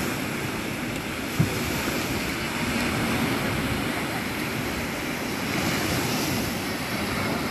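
Small Mediterranean waves breaking and washing up on a sandy beach, with wind on the microphone. A single brief thump about a second and a half in.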